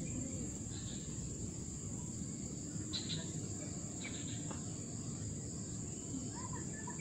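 Steady high-pitched drone of insects over a low rumbling background noise, with a few faint clicks.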